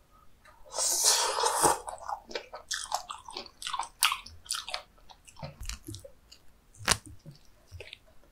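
Close-miked mouth sounds of a person eating raw seafood sashimi dipped in chogochujang: a loud wet slurping bite about a second in, then chewy chewing with many small wet clicks and smacks.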